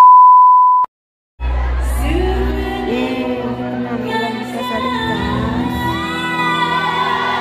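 A loud steady electronic beep lasting just under a second, then a short silence. About a second and a half in, a live dangdut band and a singer start, with a large crowd shouting and singing along in a big hall.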